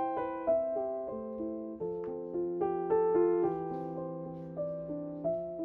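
Background piano music: soft notes struck about every half second, each ringing and fading, over a held low note.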